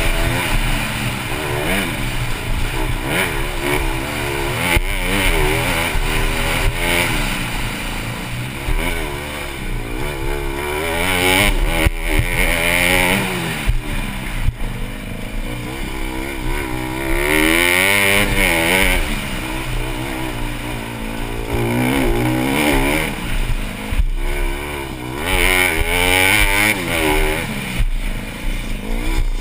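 Honda CRF150R's single-cylinder four-stroke engine on a motocross track, revs climbing and dropping again and again as the bike is ridden hard through the gears. A few sharp knocks come through along the way.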